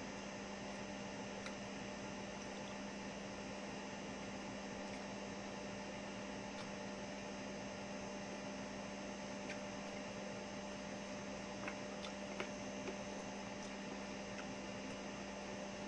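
Steady low electrical hum over a faint hiss of room tone, with a few faint clicks about three quarters of the way through.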